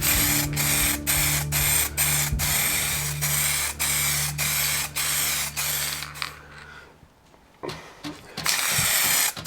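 A hand tool drawn back and forth over wood in quick strokes, about two a second, each stroke a hissing rasp. The strokes stop about six and a half seconds in, then one more run of them comes near the end.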